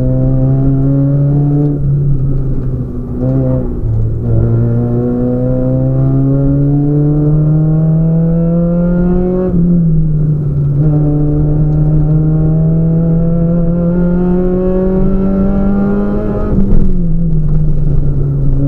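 Citroën Saxo VTS racing car's four-cylinder engine heard from inside the cockpit, accelerating hard up a hillclimb: the note climbs steadily through each gear and drops sharply at the upshifts, with a brief lift early on. A loud knock sounds near the end.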